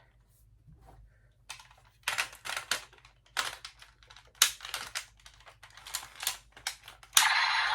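Irregular plastic clicks and knocks as a Kamen Rider Geats toy belt buckle is handled and plugged back into the belt. Near the end the toy's electronic standby sound starts up loudly.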